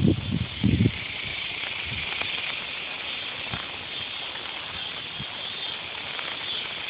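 Chorus of cicadas (the 'locusts' of a Texas summer night) droning in the trees: one continuous, even, high hiss. A few low bursts sound in the first second.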